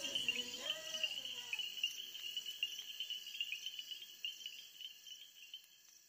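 Steady trilling chorus of crickets and other insects. The last notes of background music die away in the first second or so, and the whole chorus fades down toward the end.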